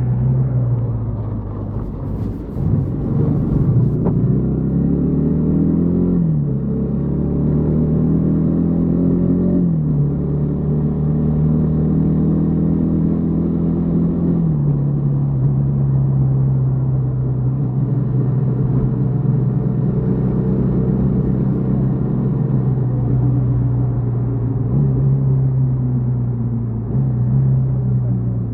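Yamaha XTZ 150 Crosser S single-cylinder engine accelerating through the gears: revs climb and drop at upshifts about six, ten and fourteen seconds in, then the engine holds a steady cruise.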